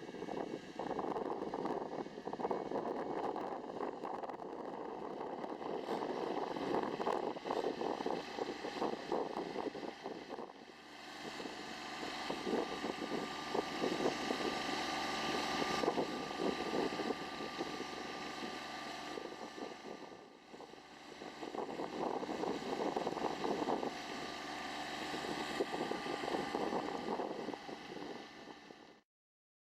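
Farm tractor engine running steadily, with wind on the microphone. The sound dips briefly twice, about ten and twenty seconds in, and cuts off abruptly near the end.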